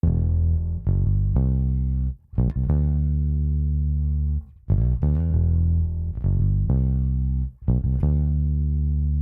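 Solo electric bass guitar playing a slow line of plucked notes, mostly long held notes with a few quick short ones between them, heard through a studio compressor under test.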